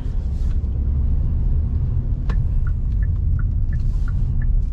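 Low, steady cabin rumble of a Hyundai Stargazer 1.5 IVT pulling away at low speed. About two seconds in there is a single click, followed by the turn-signal indicator ticking in an alternating tick-tock, about three ticks a second.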